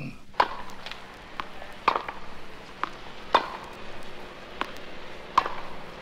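Tennis balls being struck and bouncing in a rally: a run of sharp knocks, some about half a second apart, over a faint hiss.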